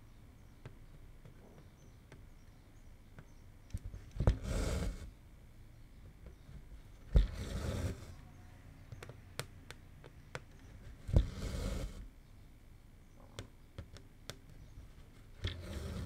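Cotton embroidery floss drawn through 18-count Aida cloth while cross-stitching. Four times, a sharp tap as the needle pierces the fabric is followed by a short rasp as the thread is pulled through, with faint small clicks in between.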